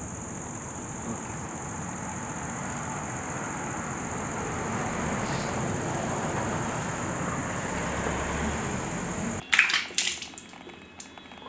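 Steady outdoor night ambience: a hiss of background noise, slowly getting louder, under a continuous high insect trill. About nine and a half seconds in it cuts off abruptly, and a few short splashes of water follow.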